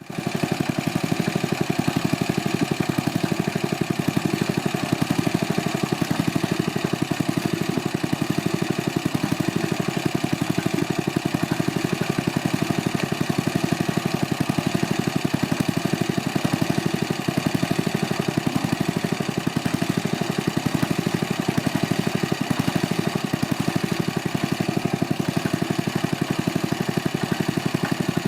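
A small engine running steadily at a constant speed, its rapid firing pulse even throughout.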